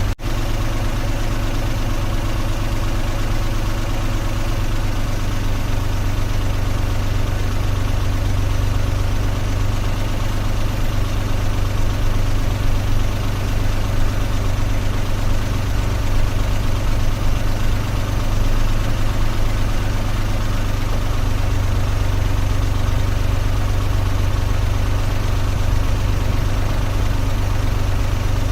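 Car engine idling steadily, a constant low hum with no revving.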